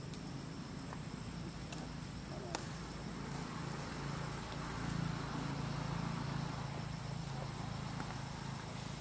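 Outdoor ambience: a steady low hum that swells a little in the middle and then eases, with a faint hiss and a few faint clicks.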